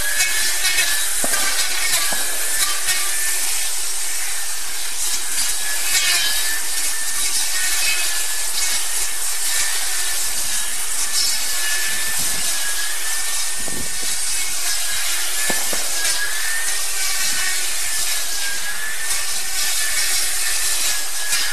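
Greenworks 40V cordless brush cutter running steadily while cutting tall grass and weeds. Its electric motor gives a high whine that wavers slightly with the load, over a constant swishing hiss from the cutting head, and there are a few short ticks.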